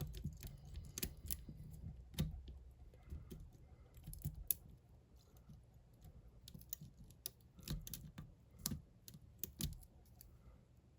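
Lock pick and tension wrench working inside a bike lock with side-mounted pins: faint, irregular small metallic clicks and ticks as the pins are set one by one.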